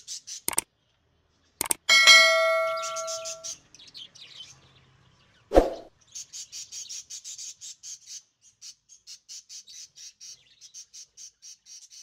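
Subscribe-animation sound effects: a few quick clicks, then a bell ding about two seconds in that rings out for a second and a half, and a short hit at about five and a half seconds. After it comes a long run of rapid high bird chirps, several a second.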